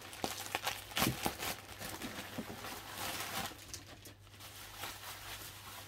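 Bubble wrap and a plastic bag crinkling and rustling as a wrapped package is handled and lifted out of a cardboard box, with scattered sharp crackles.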